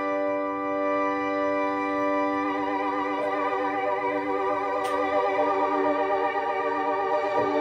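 Software keyboard preset from Arturia Analog Lab V playing held, organ-like chords. About two and a half seconds in the chord changes and takes on a wavering vibrato.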